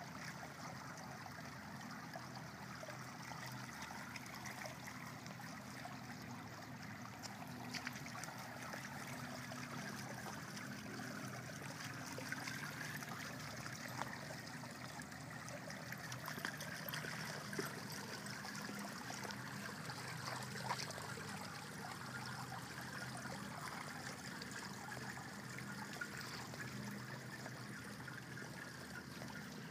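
Swimming pool water trickling steadily, with a few faint clicks scattered through.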